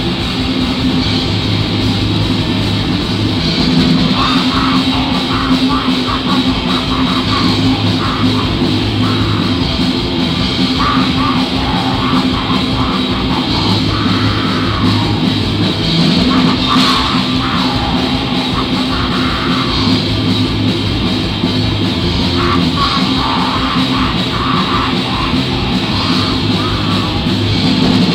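Black metal band playing live: distorted electric guitar and bass over rapid drumming. A vocalist's voice cuts in and out over the music in repeated phrases from about a second in.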